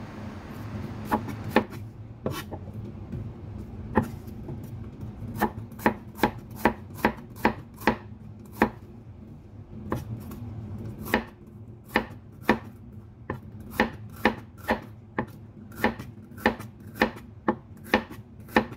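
Cleaver slicing white bitter melon thinly on a wooden chopping board: sharp knocks of the blade on the board, irregular and sparse at first, coming faster in the second half at about two a second.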